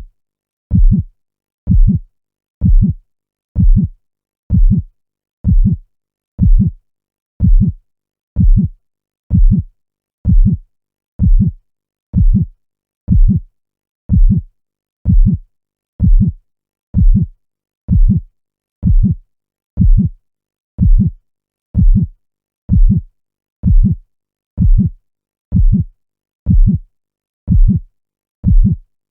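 Slow, steady heartbeat: a deep double thump (lub-dub) about once a second, roughly sixty beats a minute, with silence between beats.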